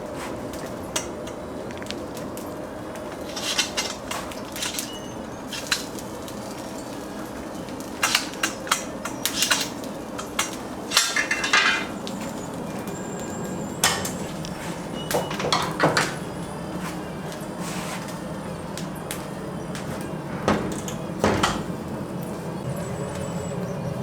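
Irregular clatter and knocks of metal utensils and dishes over a steady background hum, in bunches of quick strikes with pauses between.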